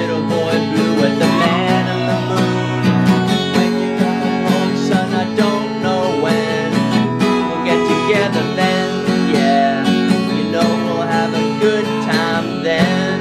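Steel-string acoustic guitar strummed in a steady rhythm, each stroke ringing out as full chords.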